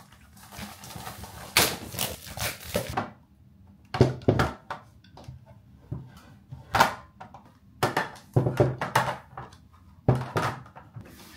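Irregular knocks, clicks and clatters of small objects being picked up, moved and set down on a hard surface while belongings are arranged, in a small room.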